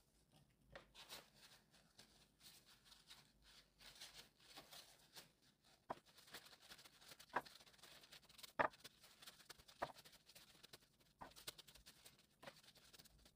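Faint handling sounds as washed shiitake mushrooms are patted dry: soft rustling of a paper kitchen towel, with several light taps against the ceramic bowl, mostly in the second half.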